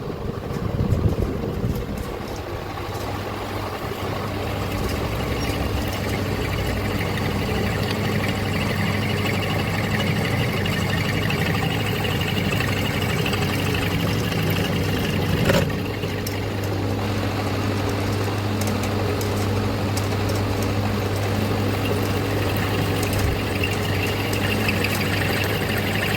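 Machine-shop machine for working engine cylinder liners, running steadily with a low hum, with one short sharp sound about fifteen seconds in.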